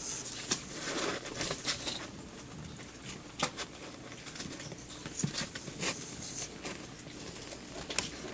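Four-week-old Pomeranian puppies eating canned food and shuffling about on newspaper: scattered soft clicks, smacks and rustles at an uneven pace, with a few sharper ticks.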